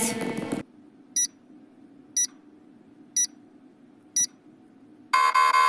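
Countdown timer sound effect: four short high beeps one second apart, then a longer buzzing tone near the end marking that time is up.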